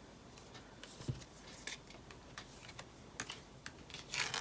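Tarot cards being handled on a table: scattered light clicks and taps, with a louder rustle of cards near the end.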